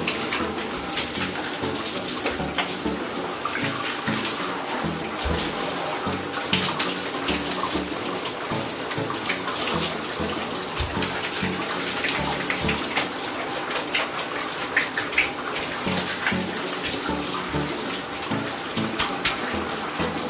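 Water running steadily from a tap and splashing as it fills a tub.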